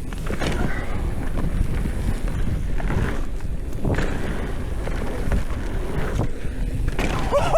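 Mountain bike rolling fast down a dirt trail: wind on the microphone and tyre and frame rattle as a steady rushing noise with uneven surges. Near the end a rider starts a rising-and-falling yell.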